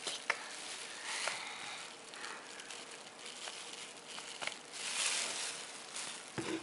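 Clear plastic bag worn over a hand crinkling in short, uneven rustles, with a few light clicks, as the hand pushes baking soda into a modelling-clay volcano cone.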